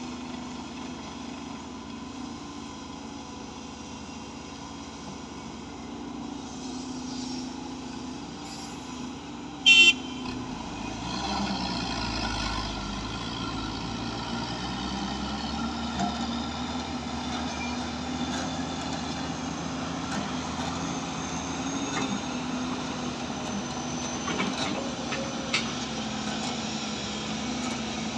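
Heavy machinery diesel engine running steadily, working harder with a deeper rumble for a few seconds after a short, loud horn toot about ten seconds in.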